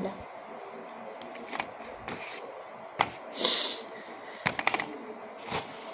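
Soft clicks and rustles of a hand moving on paper right by the phone's microphone, with a short hiss about halfway through, over a steady low hiss.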